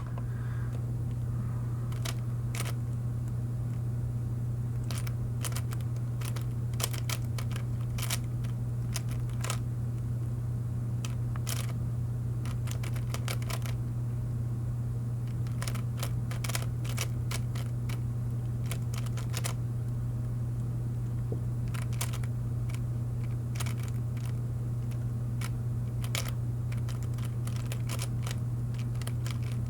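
Plastic 3x3 Rubik's cube being turned quickly by hand during a speed solve, its layers clicking and clacking in irregular quick bursts. A steady low hum runs underneath.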